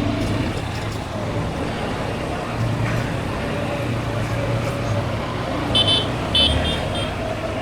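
Motorbike engine running steadily while riding through street traffic. About six seconds in there are four short horn beeps in quick succession.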